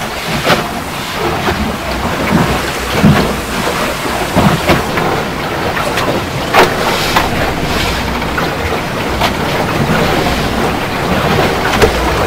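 Mousquetaire sailboat in the water: a steady rush of water and wind, broken by irregular sharp slaps and knocks every second or two.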